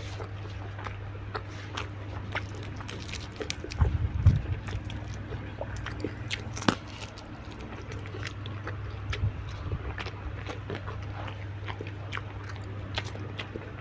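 Close-miked eating: crisp bites and wet, crunchy chewing with many quick crackles, a heavier burst about four seconds in, over a steady low hum.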